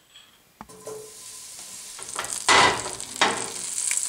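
Butter hitting a hot pan: a light knock, then a loud burst of sizzling about two and a half seconds in that settles into a steady high sizzle as the butter melts.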